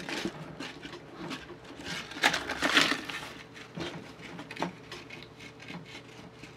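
Red Wing work boots with urethane Supersole 2.0 soles handled and tipped on a hard tabletop to test how much they wobble: scattered soft knocks and clicks. A louder rustle, like a cardboard hang tag being moved, comes about two seconds in.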